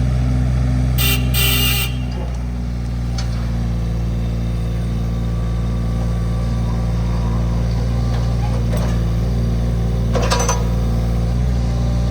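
Kubota KX015-4 mini excavator's three-cylinder diesel engine running steadily at idle, easing slightly about two seconds in. A brief hiss about a second in and a single knock near the end sit over it.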